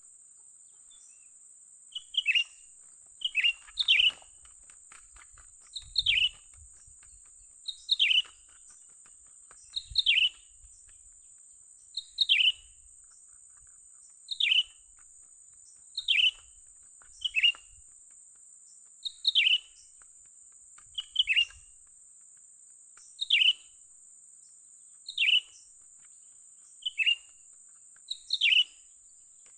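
Cucak ranting calls: a short, sharp falling chirp repeated about every two seconds, now and then doubled in quick succession.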